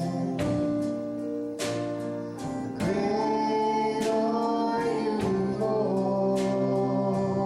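Worship song: voices singing over instrumental accompaniment, with sustained chords and struck or strummed notes.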